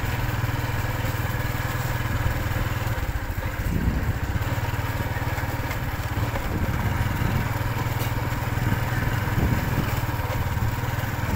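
A small engine running steadily with an even low hum.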